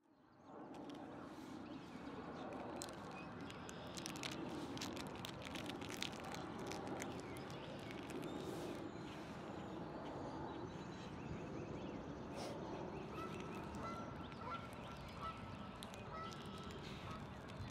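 Waterfowl calling over a steady outdoor lake background, with scattered short calls through the first half.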